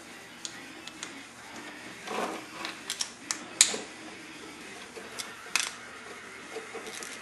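Scattered sharp clicks and taps of metal parts as an MCP brake caliper, its brake pads and a screwdriver are handled on a workbench, with a short scrape about two seconds in; the loudest click comes about halfway through.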